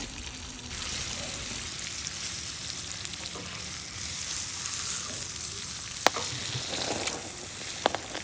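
Trout fillets sizzling as they fry in hot oil. The sizzle grows louder about a second in, with a few sharp clicks about six seconds in and near the end.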